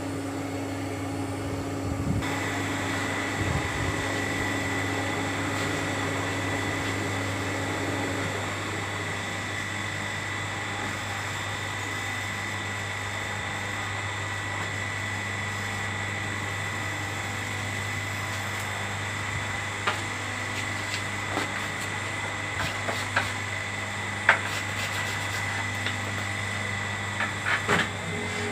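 Electric motor running steadily with a low hum and a high whine that starts about two seconds in. A few sharp light knocks come near the end.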